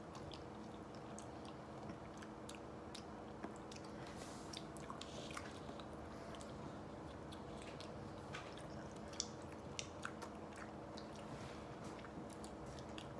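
Faint mouth sounds of people tasting ice cream from spoons: scattered small smacks and clicks, over a steady low room hum.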